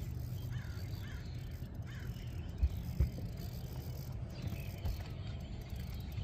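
Outdoor ambience with a steady low rumble, a few short bird calls in the first two seconds, and two thumps about two and a half and three seconds in.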